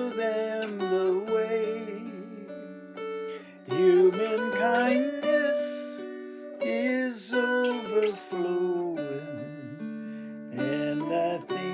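Acoustic guitar playing a slow song, with a voice singing long, wavering notes over it.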